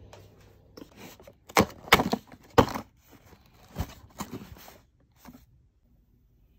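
A cardboard box of plastic-wrapped mini KitKat bars being torn open and the bars tipped out onto a table: a run of sharp crackles, rips and taps, loudest about two seconds in, ending a little after five seconds.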